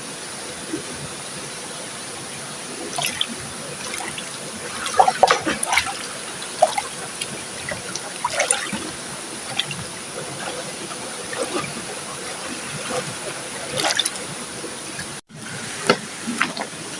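Riverside water running steadily, with irregular small splashes and trickles throughout and a brief cut about fifteen seconds in.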